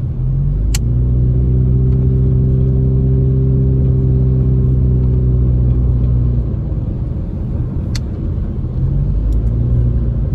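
Car engine humming at a steady cruise, heard from inside the cabin over road noise on wet pavement. The engine note falls away about six seconds in and returns near the end. There are two sharp clicks, one near the start and one near the end.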